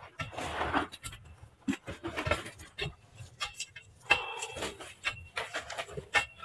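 Long metal pipe jabbed repeatedly down into gravelly soil, making a run of irregular knocks and scraping crunches as the ground is broken up.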